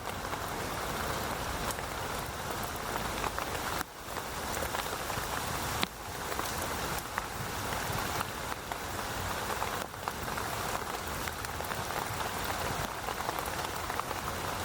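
Steady rain falling, with many individual drops ticking through the hiss. The sound briefly drops out and resumes three times.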